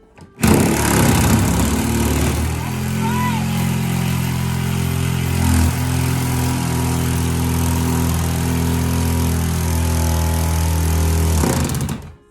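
Electric jigsaw running and cutting through a door: a steady motor hum with the buzz of the blade, starting about half a second in and cutting off shortly before the end, its pitch dipping briefly about halfway through.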